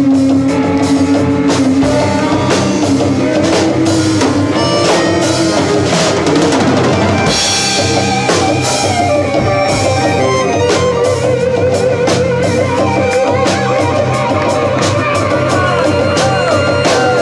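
Small live band playing rock: drum kit, guitars and saxophone together, with long held melody notes over a steady beat.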